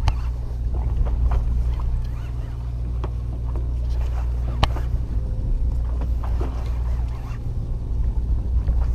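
Headboat engine running with a steady low rumble, with scattered small clicks of fishing tackle and one sharper click about halfway through.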